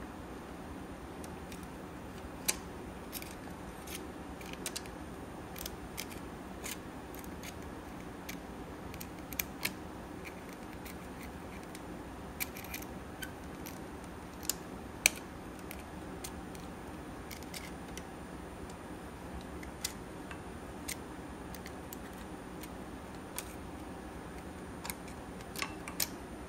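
Irregular light metallic clicks and ticks of a steel pick tool against the timing chain links and drive sprocket of a BMW N54 engine as the chain is worked off the sprocket, a dozen or more, the loudest about midway. A steady low hum sits underneath.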